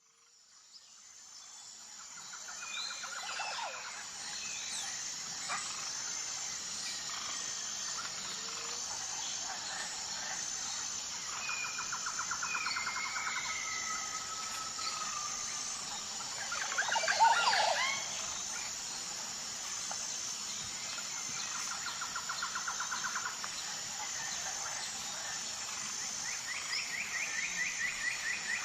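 Jungle ambience: a steady high insect drone with an even pulsing beat, with birds calling over it in rapid trills and short whistles, and one louder call about seventeen seconds in. It fades in over the first two seconds.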